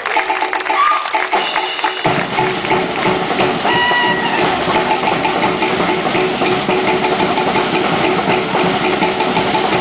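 Fast, driving Polynesian drumming for a dance: rapid, even drum strikes, with a deeper bass layer coming in about two seconds in.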